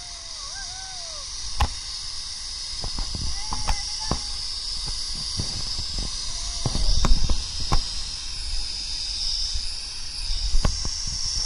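Zipline trolley running along the cable, a steady high hiss, with wind buffeting the microphone and scattered sharp knocks on the camera.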